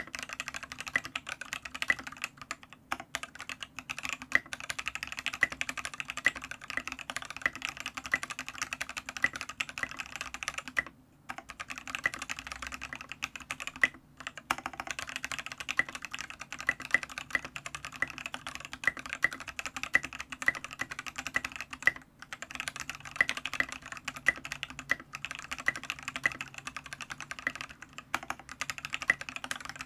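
Continuous fast typing on a Matrix Noah 65% mechanical keyboard with lubed C³Equalz Tangerine linear switches on an aluminium plate and KAT Milkshake keycaps, a dense run of soft, deep clacks broken by brief pauses about 11, 14 and 22 seconds in.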